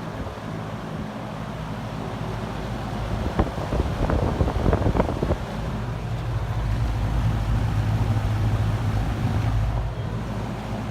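Penncrest 100 box fan with metal blades and a 2.8 amp motor, running on high: a steady rush of moving air over a low motor hum. A few knocks and a gusty buffeting of air come about four to five seconds in.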